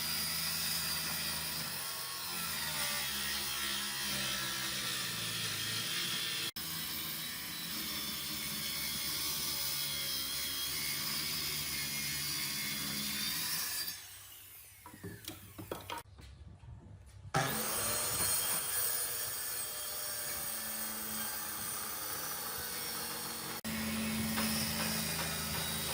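Power tools working wood, a steady mechanical running noise with a low hum that drops away for a few seconds about halfway through and then resumes.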